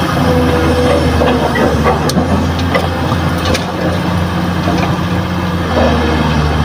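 Kobelco hydraulic excavator's diesel engine running under load as it swings and dumps a bucket of soil into a dump truck's steel bed. The engine note shifts a couple of times, and a few sharp knocks of clods striking the bed come in the middle.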